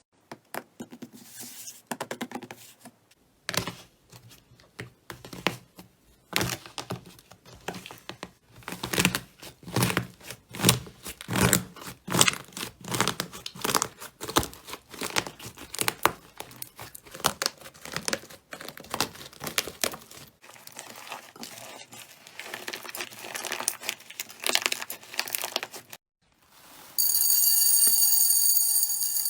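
Slime being squeezed and stretched by hand, giving off a dense run of irregular crackling and popping clicks. Near the end the crackling stops, and after a short pause a loud steady hiss with high ringing tones begins.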